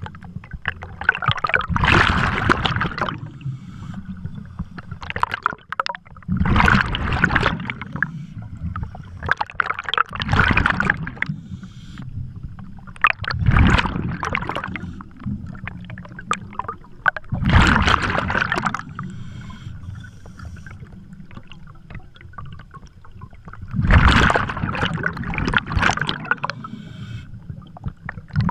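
Scuba diver breathing through a regulator underwater: about six loud bubbling bursts of exhaled air a few seconds apart, with quieter gaps between breaths.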